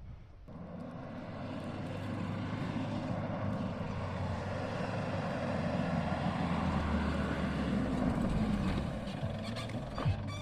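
A 4x4's engine running steadily on the move, a low hum with a rushing noise over it, growing louder over the first couple of seconds. A couple of sharp knocks near the end.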